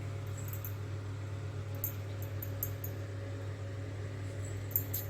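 Steady low hum with faint, scattered high ticks.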